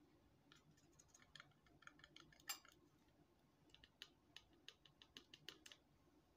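Faint crinkling and ticking of thin clear plastic packaging handled and squeezed as yogurt is pressed out of it into a bowl: a loose string of small, sharp clicks.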